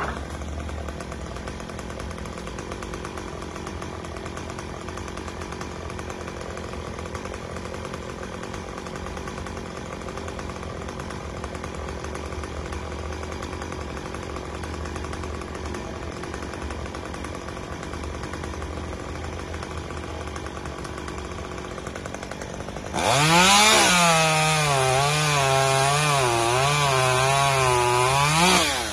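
A chainsaw runs at a steady idle, then about 23 seconds in is throttled up to full speed and cuts into a tree limb, its pitch wavering as the chain bites, until it winds down right at the end.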